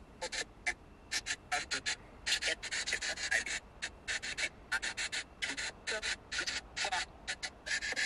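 Spirit box app on a phone, its speaker putting out short bursts of hissing, radio-like static that cut on and off several times a second as it sweeps.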